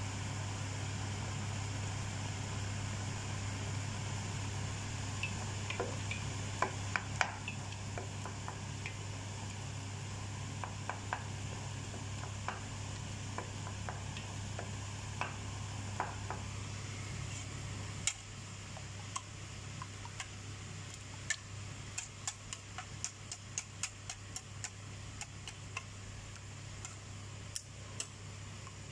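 Wooden spoon knocking and stirring in a pan of simmering tomato sauce, then, from about two-thirds through, a wire whisk clicking rapidly against a metal bowl of beaten eggs. A steady low hum runs underneath.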